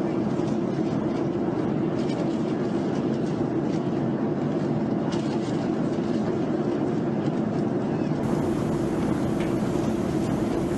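Steady, loud, muffled rumbling noise with a strong low hum, the ambient soundtrack of military footage filmed off a screen, which the narrator takes to be the background noise of a ship. About eight seconds in, the noise shifts slightly in character as the audio changes from one clip to the other.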